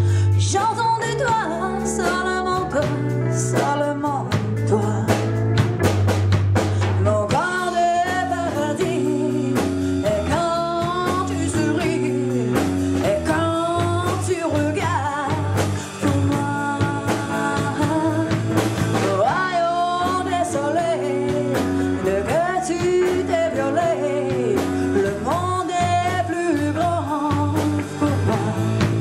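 Rock band playing live: electric guitar and drum kit with crashing cymbals under a sustained bass line, and a voice singing over them from about a second in.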